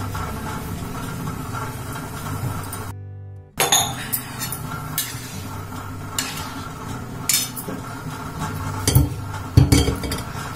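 Kitchen dishes and utensils clinking in scattered knocks, after a steady hum that breaks off suddenly about three seconds in.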